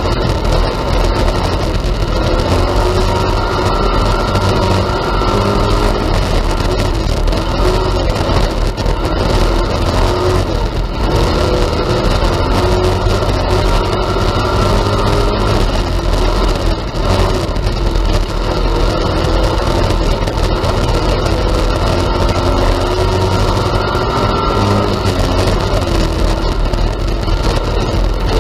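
IMCA Hobby Stock race car's V8 engine heard from inside the cockpit, loud throughout, its pitch rising and falling again and again as the throttle opens and closes around the laps.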